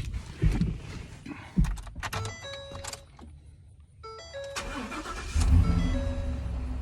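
Ford F-250's 6.2 L V8 cold-starting: it fires and catches about five seconds in, then settles into a steady idle. A quick start with no long crank, the sign that the fuel pump's faulty check valve has been cured by the new pump. Before it come a few knocks and the truck's repeating electronic chime.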